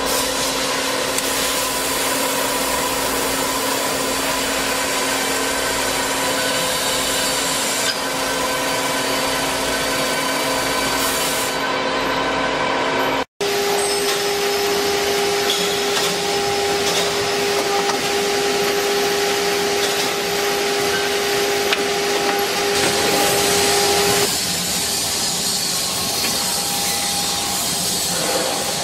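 Multi-spindle CNC beam drilling machine running: a 22 mm drill boring through a steel channel gives a steady, multi-toned machine whine. The sound cuts out for an instant about 13 seconds in. The machine then runs on with a different steady whine during its automatic tool change, which shifts near 24 seconds.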